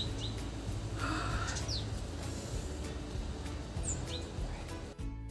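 Small birds giving a few short, high, falling chirps over a steady low rumble. Music starts abruptly near the end.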